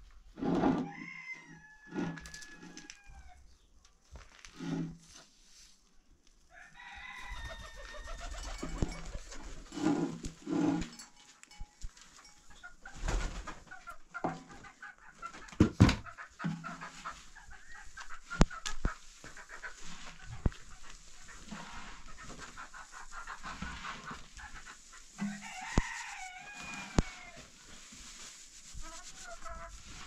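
Domestic chickens clucking and calling, with bird calls near the start, about a quarter of the way in and near the end, and scattered sharp knocks and clatter between them.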